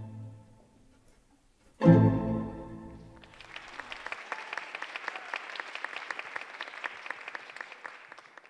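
Recorded orchestral ballet music for the end of a variation: a brief pause, then a loud final chord about two seconds in that dies away. Audience applause, many hands clapping, starts about a second later and fades out near the end.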